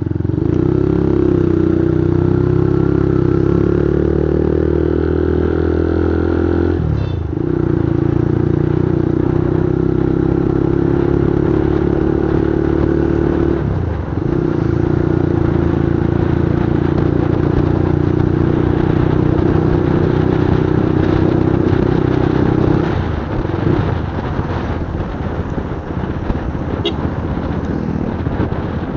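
Motorcycle engine running steadily while riding. The engine note rises a little, then dips briefly about 7 and 14 seconds in, like throttle lifts or gear changes. It eases off to a lower, rougher sound near the end.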